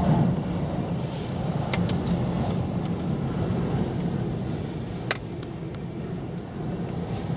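Gale-force wind, about 120 km/h, buffeting the microphone as a steady low rumble, strongest at the start. A few sharp ticks come through it, the clearest about five seconds in.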